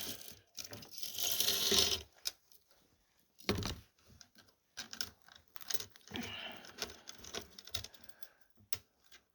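Stihl MS 460 saw chain being fitted by hand onto the bar and around the drive sprocket: metal links clicking, rattling and scraping in irregular bursts, busiest in the first two seconds, with a single knock about three and a half seconds in.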